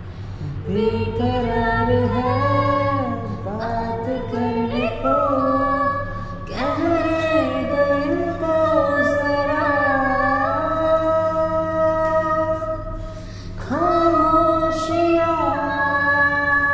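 A young woman singing a Hindi song unaccompanied, holding long notes with ornamented bends, with a short breath-break near the end.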